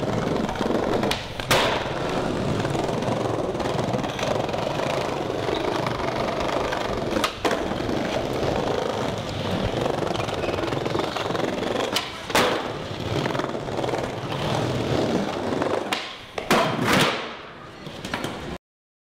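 Skateboard wheels rolling steadily over a tiled floor, with a handful of sharp knocks of the board through the ride. The sound cuts off suddenly near the end.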